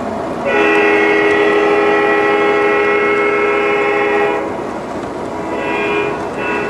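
Model train's electronic sound system sounding one long horn-like blast of about four seconds, then a short blast and the start of another, over the steady running noise of the train rolling on the track.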